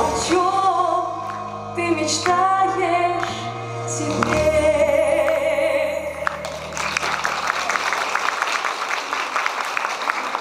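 A woman sings into a microphone over a backing track and ends on a long held note. About six and a half seconds in, the song ends and the audience applauds.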